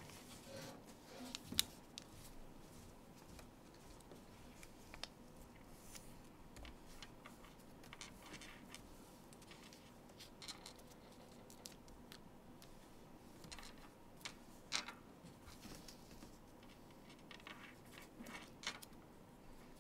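Faint rustling and crinkling of origami paper being folded and creased by hand on a tabletop, in short scattered bursts, with a sharper crackle about a second and a half in and another about three quarters of the way through.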